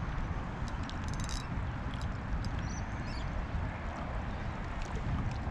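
Wind buffeting the microphone in a steady, gusting rumble. A few short, high rising chirps sound over it, and a brief rattle of fine clicks comes about a second in.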